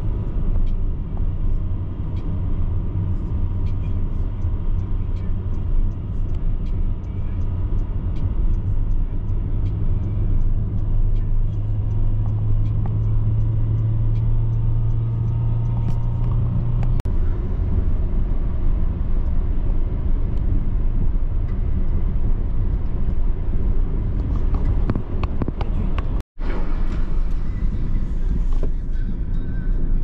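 A car driving, a steady low engine and road rumble. The low drone in it changes about halfway through, and the sound drops out for an instant near the end.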